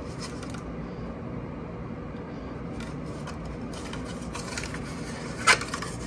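Plastic housing of a Notifier Emhart 035-615 smoke alarm being handled and twisted apart: quiet rubbing and scraping, with one sharp click about five and a half seconds in.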